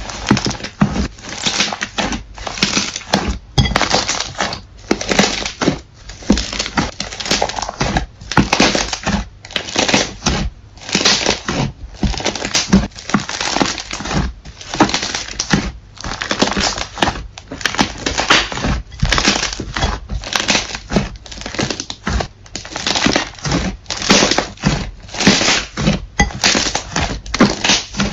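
Thick green slime squeezed and pressed by hand, each squeeze giving a noisy, crackling squish, about one a second.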